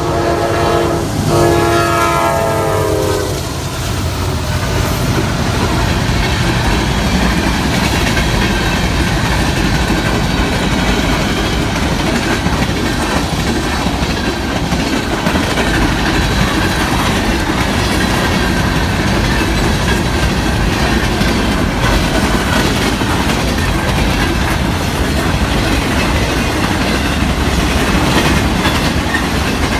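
Norfolk Southern freight train passing: the locomotive's horn sounds two blasts, a short one and then a longer one that stops about three seconds in. After that comes the steady rumble and wheel clatter of the manifest's freight cars rolling by.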